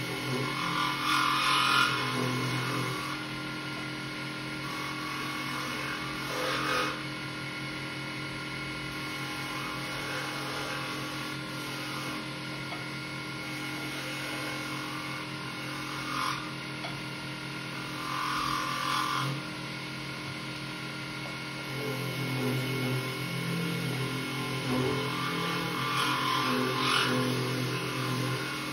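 Mini wood lathe running with a steady motor hum while a turning tool cuts a Glowstone pen blank, throwing off shavings. Louder, brighter scraping swells of cutting come and go about five times, each lasting a second or two.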